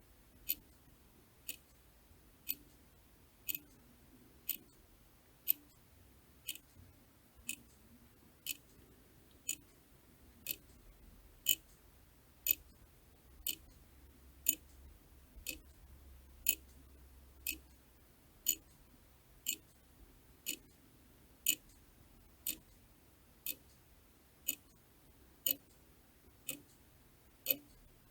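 Mechanical clock ticking steadily, one sharp tick about every second.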